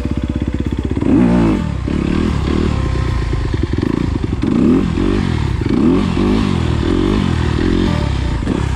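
Honda CRF250R dirt bike's single-cylinder four-stroke engine revving up and dropping back again and again as the bike is ridden.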